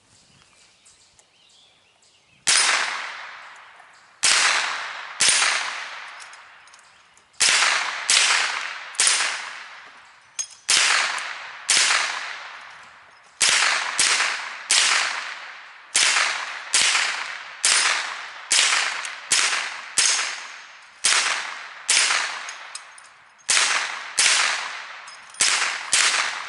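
Smith & Wesson M&P 15-22 .22 LR semi-automatic rifle firing shot after shot, starting a couple of seconds in: about thirty sharp cracks at an uneven pace of one to two a second, each trailing off in echo.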